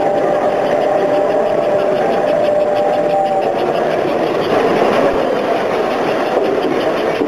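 S gauge model trains running on a layout: a steady motor hum and clatter of wheels on the track. A steady two-note tone sounds over it and stops about three and a half seconds in.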